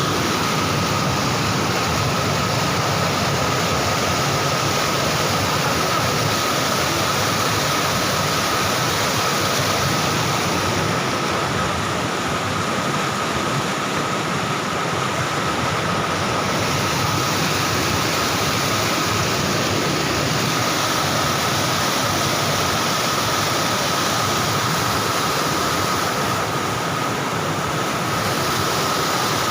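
Floodwater rushing hard in a steady, unbroken roar of noise, with a thin steady tone above it.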